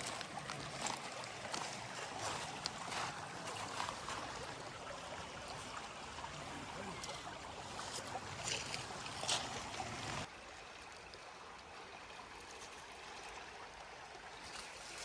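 Footsteps along a hiking trail with scattered short scuffs and clicks, over the steady rush of a nearby creek. The sound thins abruptly about ten seconds in.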